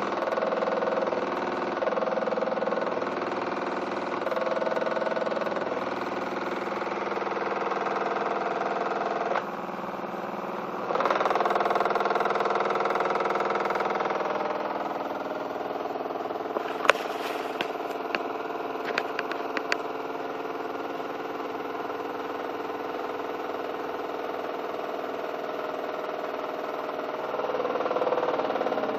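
Miele WKB130WCS front-loading washing machine running with a loud vibrating hum whose pitch and level shift in steps, with a few sharp ticks or rattles partway through. The uploader puts the vibration noise down to the detergent drawer and its weak plastic connectors.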